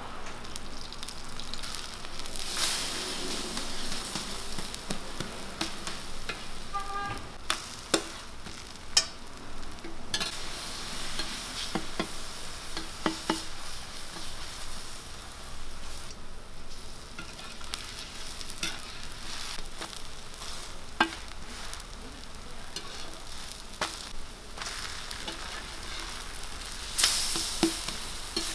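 Chive pancakes sizzling in oil on a large round griddle, with a metal spatula clicking and scraping against the pan now and then. The sizzle surges louder twice, once near the start and again near the end.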